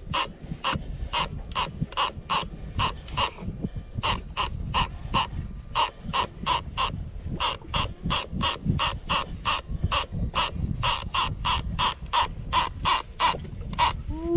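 Conventional fishing reel's ratchet clicking steadily, about three clicks a second, with a brief pause about four seconds in, over a low rumble.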